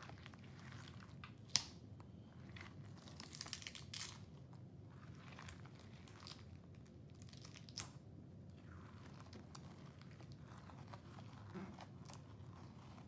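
A mesh-covered squishy ball pressed and rolled under a palm on a wooden surface, giving faint crinkling and squishing with scattered sharp clicks. The loudest click comes about a second and a half in, with a cluster of crackles around three to four seconds.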